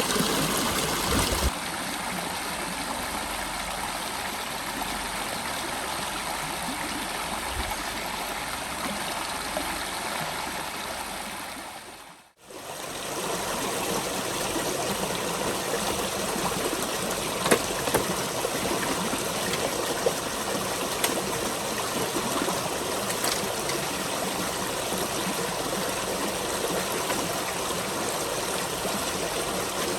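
Steady rushing of running water. It dips briefly to silence and returns about twelve seconds in.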